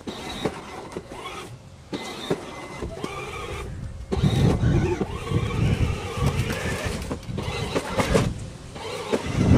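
Battery-powered ride-on toy car converted into an autonomous leaf vacuum, driving over a lawn: its electric drive motors whine, rising and falling in pitch, with a louder low rumble from about four seconds in.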